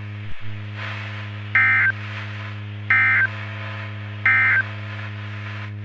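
Three short bursts of NOAA Weather Radio SAME digital data tones, each about a third of a second long and about a second and a half apart. Their shortness fits the end-of-message code that closes an emergency alert. A steady mains-type hum and a radio hiss lie underneath.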